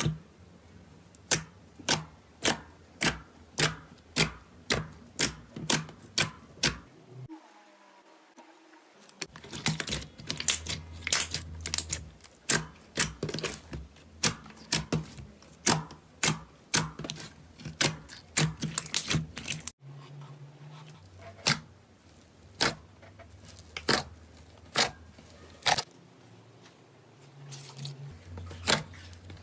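Slime being worked by hand, giving a long series of sharp clicks and pops about two a second, quicker and denser through the middle stretch.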